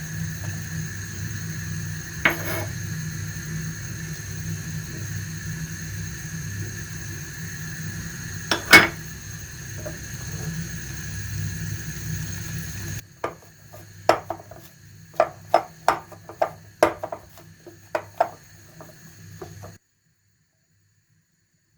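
Kitchen utensils clinking against dishes: a steady background hum with two sharp clinks, then a run of light taps about two a second, cutting off to silence near the end.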